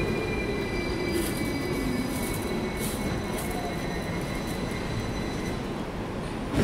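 Hong Kong double-decker electric tram running on its rails and slowing. Its motor whine falls in pitch over a rumble from the wheels, with a thin high squeal from the wheels on the rails, and a single knock near the end.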